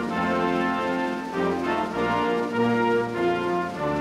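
Orchestral music led by brass, playing held notes and chords that change about every half second.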